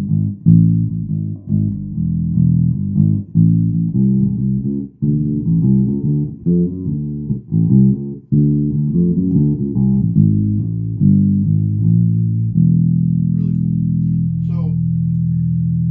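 Birdsong Cortobass short-scale electric bass, played on its bridge pickup alone with the tone control rolled all the way back, so the notes are dark with little treble. A riff of plucked notes runs for about twelve seconds, then one low note is held and left to ring.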